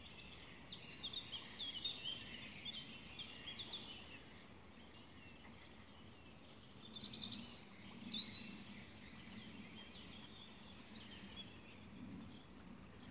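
Several birds singing and chirping in quick, overlapping short calls, busiest in the first few seconds and again about seven to eight seconds in, over a faint steady background hiss.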